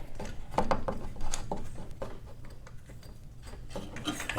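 A few light clicks and knocks as a garage door cable drum is handled and fitted onto the torsion spring shaft, followed near the end by a scraping rub.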